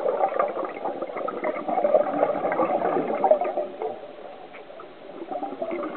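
Scuba diver's exhaled air bubbling and gurgling from the regulator underwater, heard muffled through an underwater camera housing. It eases off about four seconds in, then the bubbling picks up again near the end.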